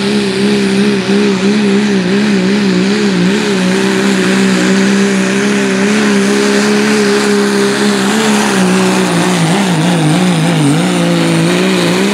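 Turbocharged diesel pickup engine at full throttle under heavy load, pulling a weight-transfer sled. A steady, loud engine note is joined by a thin high turbo whistle. After about eight seconds the pitch wavers and sags.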